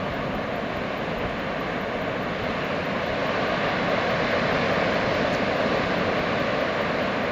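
Atlantic surf breaking onto a sandy beach, heard as a steady rushing wash of waves that grows a little louder about three seconds in.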